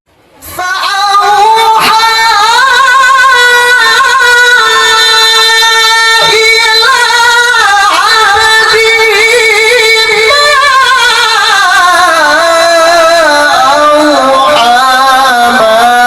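Male Quran reciter's voice in melodic mujawwad recitation: one long, high-pitched phrase held in a single breath, heavily ornamented with wavering turns. It starts about half a second in after a short pause and slowly descends in pitch over the second half.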